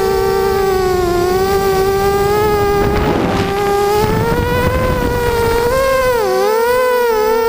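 Multirotor quadcopter's electric motors and propellers whining in flight, the pitch wavering up and down with the throttle and dipping quickly a couple of times near the end. A brief rush of noise about three seconds in.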